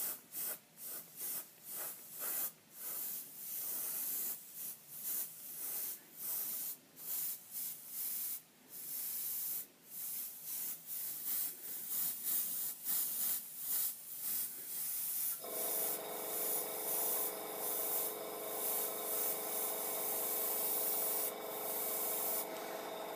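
Airbrush hissing in repeated short bursts as the trigger is pressed and released while spraying paint. About two-thirds of the way in, a small motor starts and hums steadily under the spray.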